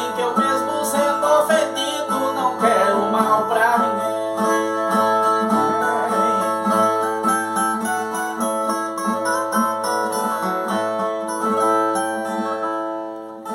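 Ten-string Brazilian viola plucked and strummed in a repetitive cantoria interlude. A male voice holds the end of a sung line over it for the first few seconds.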